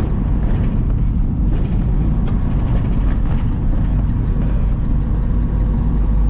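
Steady low rumble of a semi truck's engine and tyres, heard from inside the cab while driving on the highway.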